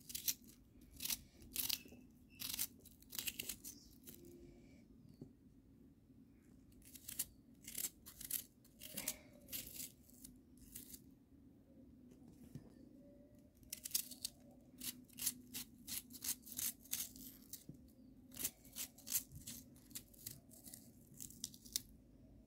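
Serrated knife slicing through a raw onion held in the hand, a quick run of short, crisp crunching cuts in irregular bursts with brief pauses. A faint steady low hum sits underneath.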